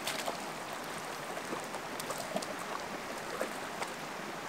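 A hooked trout splashing in the shallows at the lake's edge as it is brought in and landed: a scatter of small, sharp splashes over a steady background hiss.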